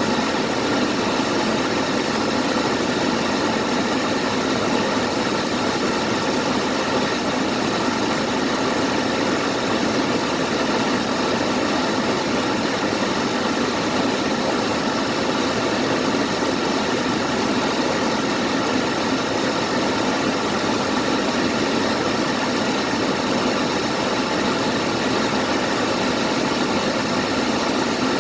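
Car engine idling steadily just after a cold start, not yet warmed up, with no change in speed.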